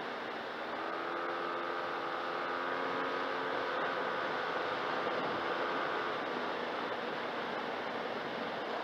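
Yamaha TMAX 500 maxiscooter's parallel-twin engine running while riding, its note rising a little over the first few seconds and fading back about six seconds in, under steady wind rush.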